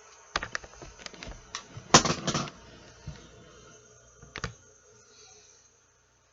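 Handling clatter of fidget toys: a scattering of sharp clicks and knocks, loudest in a quick cluster about two seconds in, with one more knock later. The sound then cuts out to complete silence near the end.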